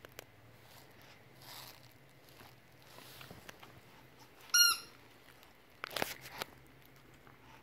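A rubber dog squeaky toy gives one short, sharp squeak about four and a half seconds in as a chihuahua bites on it. A brief scuffle of noise follows about a second and a half later.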